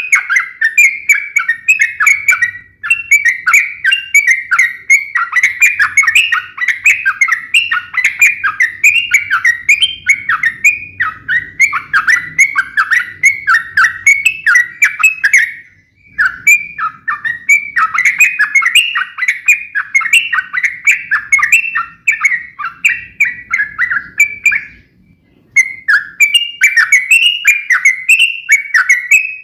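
Yellow-vented bulbul giving its sharp, rapid-fire fighting call: a fast run of chattering notes that pauses briefly twice.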